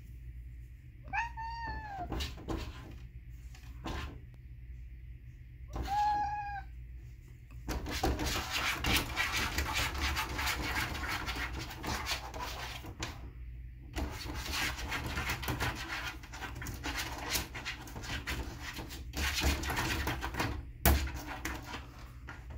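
A cat meows twice, a few seconds apart, each call falling in pitch. Then comes a long stretch of scratching and rattling with many small knocks as the cat paws at the plastic flap of a smart dog door, trying to push it open.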